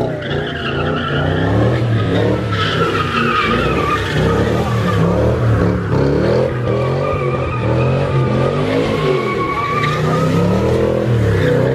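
A car doing donuts: the engine revs rise and fall over and over while the spinning rear tyres squeal in long, wavering screeches.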